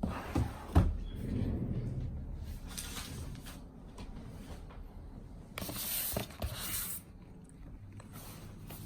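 Cardboard packaging of a watch box being handled: a knock about a second in, then rustling and rubbing. A louder scraping, paper-like rustle lasts about a second and a half around six seconds in.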